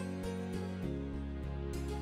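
Soft instrumental background music: held chords over a light, steady beat, changing chord a little under a second in.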